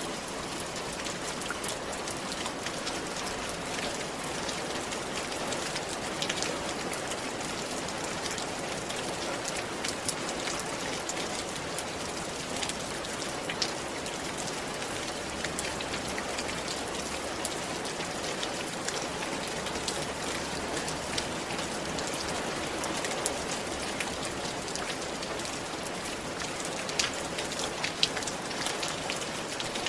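Steady rain falling on a roof, a continuous hiss with many individual drops ticking, a few louder drips standing out now and then.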